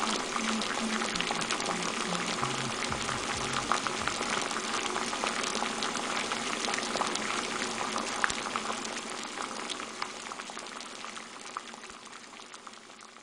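A dense bubbling, crackling noise with a few low music notes under it at first, fading out toward the end.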